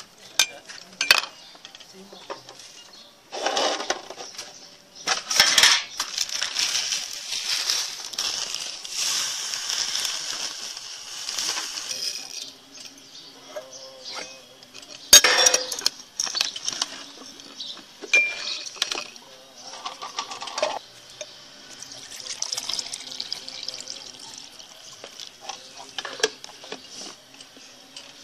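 Milk being poured into a drinking glass coated with Rooh Afza syrup, in several spells of splashing, with sharp glass clinks now and then; the loudest clink comes about halfway through.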